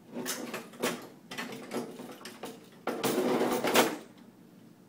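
The metal mechanism of a 1948 Mills War Eagle slot machine being slid back into its cabinet: a few knocks and clatters, then a scraping slide about three seconds in that lasts about a second.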